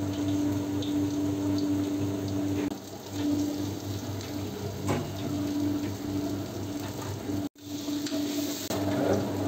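Steady hum of an electric fan motor with a low drone, broken once by a sudden drop-out. A couple of light knocks and scrapes come from a steel ladle working masala in an iron wok.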